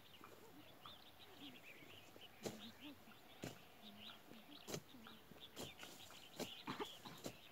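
Faint irregular strikes of hoes chopping into grassy soil, coming about once a second and then several in quick succession near the end, with birds chirping in the background.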